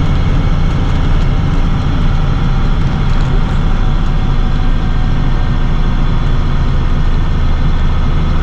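Box truck engine and road noise heard inside the cab while driving: a steady low drone.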